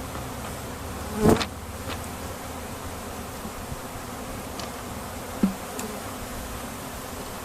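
Mass of honeybees buzzing steadily around an open hive box. Two short knocks, the louder about a second in and a smaller one near the middle, as wooden frames are set back into the hive.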